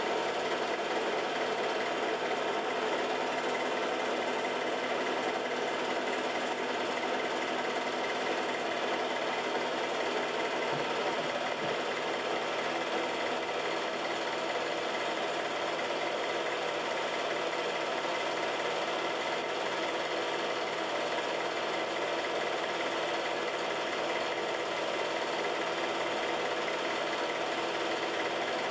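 Home-movie film projector running steadily, a continuous even mechanical whirr.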